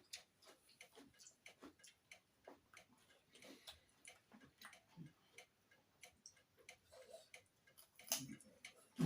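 Faint chewing and mouth sounds of someone eating: soft, irregular clicks and smacks, about two to three a second, near silence otherwise.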